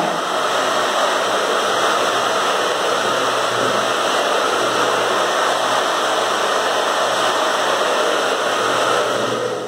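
Handheld hair dryer blowing steadily onto freshly painted metallic paint to dry it, switched off just before the end.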